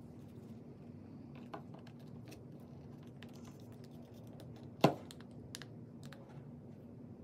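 Light plastic clicks and taps as DJI Air 2S flight batteries are handled on the charging hub, with one sharp snap about five seconds in as a battery is pushed home in the hub. A faint steady hum runs underneath.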